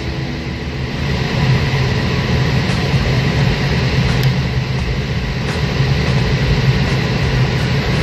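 Steady whooshing drone of a computer-room air conditioner's blower running in a server room, with a low hum underneath.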